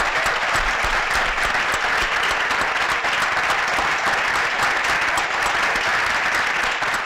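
A large audience applauding, many hands clapping at an even level.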